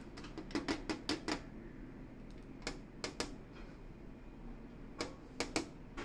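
Quick, sharp taps on the clear plastic wall of a lovebird cage, where the finger and the bird's beak meet. They come in three clusters: several in quick succession about a second in, a few around the three-second mark, and three more near the end.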